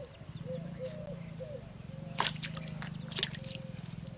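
Water splashing twice, about two seconds in and again a second later, as a bamboo fishing pole is jerked up out of a pond. Behind it run a steady low drone and short repeated calls.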